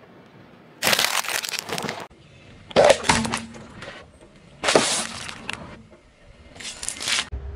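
Car tyre rolling over and crushing packaged snacks, a stack of round biscuits and a bag of crisps among them, heard as four short crunching, crackling bursts, several cut off abruptly.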